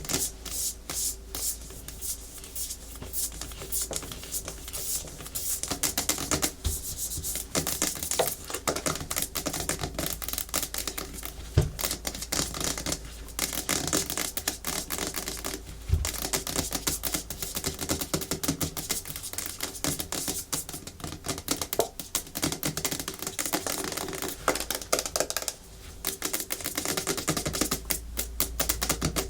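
Natural fingernails tapping fast and hard on a hard plastic surface, a dense run of quick clicks mixed with scratching, with a heavier knock twice.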